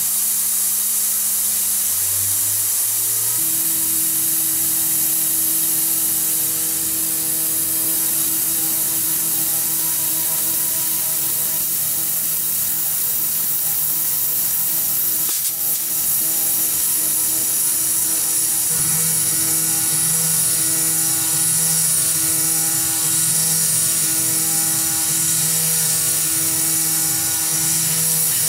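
Tormach 440 CNC mill cutting aluminum with a 3/16-inch two-flute carbide end mill at 10,000 RPM: a steady whine of several held tones over the hiss of the coolant mist. About two-thirds of the way through, the whine begins to swell and fade in regular pulses.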